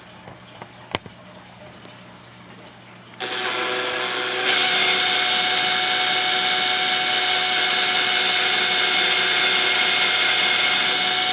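Cordless drill spinning a bit into the breather hole of a metal RC fuel-tank cap, enlarging the hole for a set screw. It starts about three seconds in, speeds up about a second later, then runs at a steady whine.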